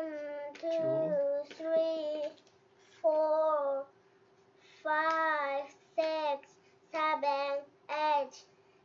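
A young girl singing in a high sing-song voice: a string of short held notes that glide up and down, with brief pauses between phrases.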